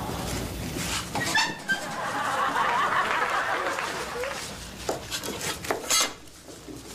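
Studio audience laughing for a few seconds, with a few sharp knocks and taps around it.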